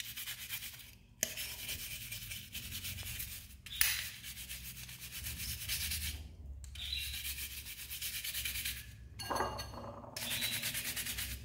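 Brass wire brush scrubbing the metal body of a gold-finish S.T. Dupont lighter, wet with detergent water, to clean off the grime: rapid scratchy back-and-forth strokes in several runs with brief pauses between them.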